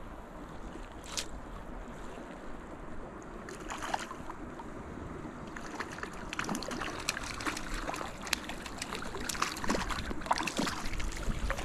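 Creek water running over rocks with wind on the microphone, and a growing patter of small splashes and ticks over the second half as a hooked trout is played close to the surface.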